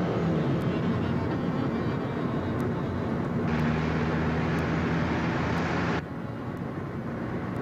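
A car being driven fast: steady engine and road noise. About three and a half seconds in, a louder, brighter rush joins it, as of a car passing close, and about six seconds in this cuts off suddenly.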